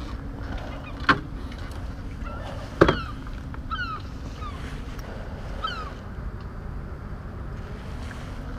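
Gulls calling: several short, falling cries over a steady low rumble, with two sharp knocks about one and three seconds in.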